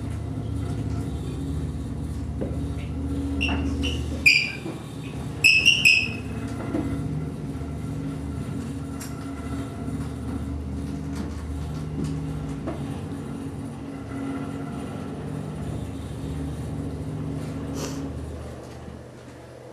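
Free-improvised experimental ensemble music: a steady, low, layered drone of held tones, cut through by a few sharp, high squeals about four and six seconds in.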